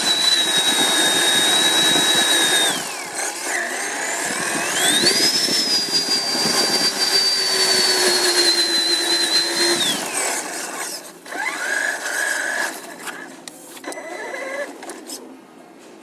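Traxxas Summit electric RC truck's motor and drivetrain whining under throttle, with tyre noise. The whine rises in pitch, holds, and falls away twice; the second run is higher and lasts about five seconds. Shorter, weaker bursts of throttle come near the end.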